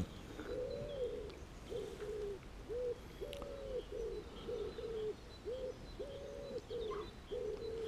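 Wood pigeon cooing: about three phrases of low, soft hoots, each phrase built around one longer stressed note followed by several shorter ones.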